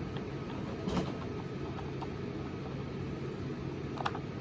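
A steady low room hum with a few faint clicks and taps of 3D-printed plastic face-shield parts being handled, about one, two and four seconds in.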